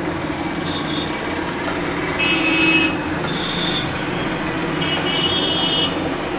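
Cut okra sizzling in hot oil as it is stirred in a pan with a silicone spatula, with four short high-pitched toots over a steady background.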